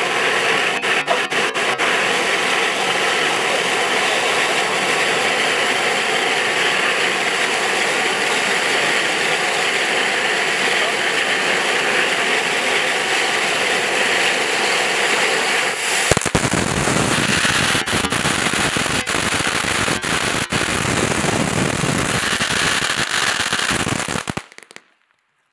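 Ground fountain firework spraying sparks with a steady, loud hiss. About sixteen seconds in, the sound becomes a fuller, deeper rush with scattered sharp cracks as the fountain throws sparks out wide. Near the end it cuts off suddenly as the fountain burns out.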